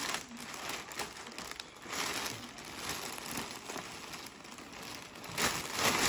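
Packaging rustling and crinkling in irregular bursts as a parcel is handled and opened, louder near the end.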